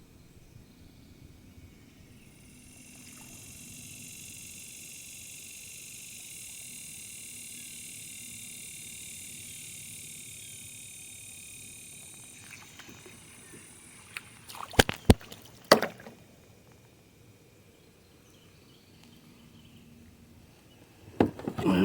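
A high, steady buzz swells for about ten seconds and fades. About two-thirds of the way through, a handful of sharp knocks and clatters on the kayak, the loudest sounds here.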